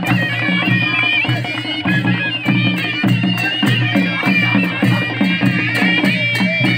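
A Nepali panche baja band playing live: a nasal shehnai melody over dholaki drums keeping a steady, repeating beat.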